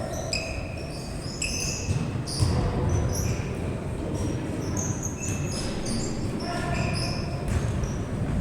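Indoor basketball game: sneakers squeak on the court again and again in short, high squeaks, with the ball bouncing and a steady low murmur of the hall behind.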